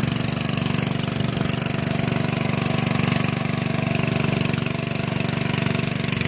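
Small engine of a portable pump set running steadily at an even speed, driving water through a hose to flush mud out of a newly drilled bore well.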